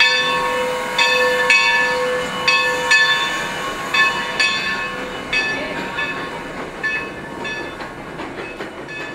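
Steam locomotive's bell being rung as the engine passes close by, its strokes falling in pairs about every second and a half and fading toward the end. Steam hiss runs beneath.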